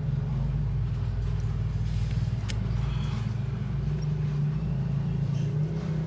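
Steady low motor rumble, even throughout, with a faint click about two and a half seconds in.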